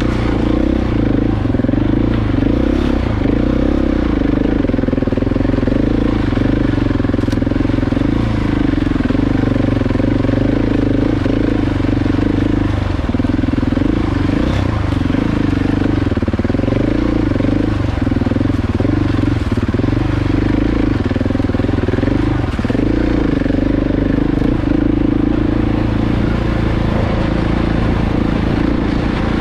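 KTM 690 Enduro R's single-cylinder four-stroke engine running while the bike is ridden over a rough lane, revs rising and falling with the throttle.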